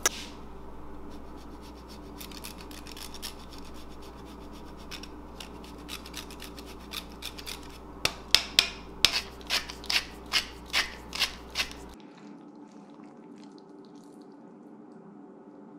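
Hard cheese being grated on a handheld rasp grater over a bowl of pasta: faint scraping at first, then about ten quick, loud strokes in a steady rhythm of roughly three a second, stopping abruptly. A sharp click comes right at the start.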